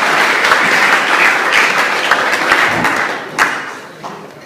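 Audience applauding, a dense run of hand claps that dies away over the last second or so, with a single sharp click about three and a half seconds in.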